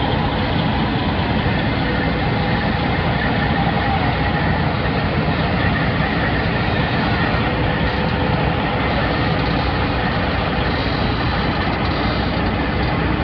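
Diesel engine of a semi tractor running steadily at low speed as the truck moves a mobile home into position.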